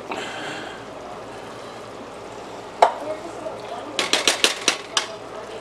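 A spoon stirring beans in barbecue sauce in a pot, over a steady hiss of the pot cooking. There is one sharp clink about three seconds in, then a quick run of clinks against the pot from about four seconds in.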